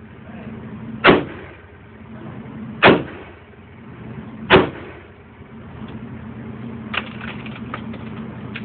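.357 Magnum revolver fired three times in an indoor range, about a second and a half to two seconds apart, each shot echoing briefly. A few lighter clicks follow near the end over a steady low hum.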